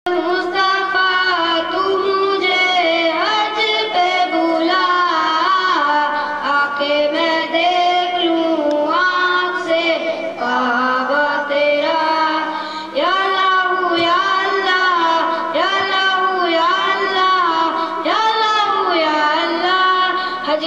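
A boy singing a naat, an Urdu devotional poem, solo and unaccompanied into a microphone, in long held and gliding melodic phrases.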